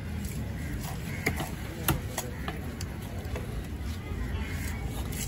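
Large fish knife cutting through a sailfish loin on a wooden chopping block, giving a few scattered sharp knocks, the loudest about two seconds in, over a steady background of market noise.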